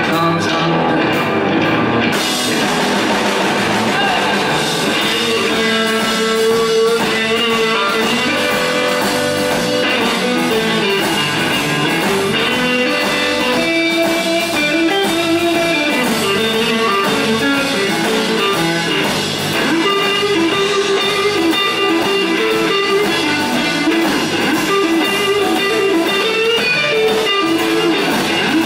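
Live blues-rock band playing, led by an electric guitar playing held notes that bend in pitch, over drums.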